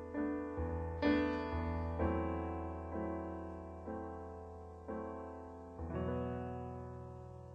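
Instrumental piano ending of a song. Chords are struck about once a second and each dies away, and the last one, near the end, is left ringing and fading.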